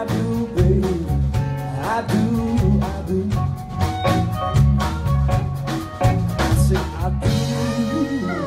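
A live blues band playing: drum kit beat, electric bass, electric guitar and harmonica with bending notes. The drums drop out about seven seconds in while a bending note carries on.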